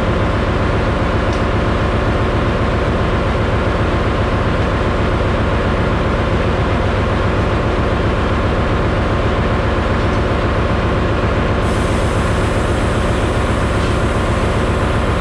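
Ship's engine room machinery, with the diesel generator engines running: a loud, steady drone made of many layered hums.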